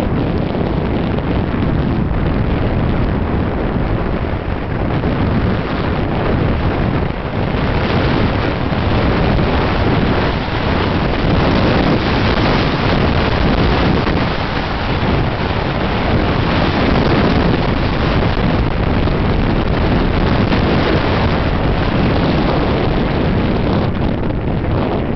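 Wind buffeting the microphone of a camera carried by a skier running down a groomed piste: a loud, steady, deep rush with no pauses.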